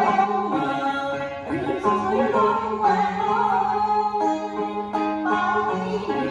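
Instrumental music: plucked string instruments picking out a melody, with one wavering, bending line over a steady low note.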